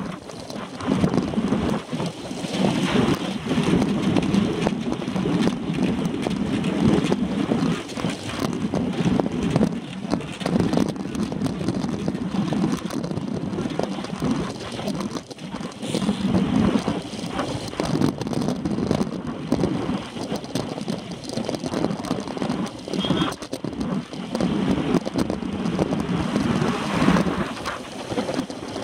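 Wind buffeting the microphone of a handlebar-mounted camera on a road bike ridden at race speed, in gusty swells that rise and fall.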